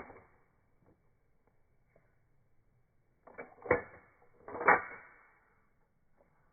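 Pistol: two loud sharp bangs about a second apart, each dying away over about half a second, after a shorter bang right at the start.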